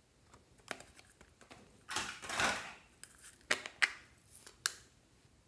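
Small hard plastic containers being handled and opened over a glass dish: a scatter of sharp clicks and taps, with a longer rustling sound about two seconds in and a few louder clicks near the end.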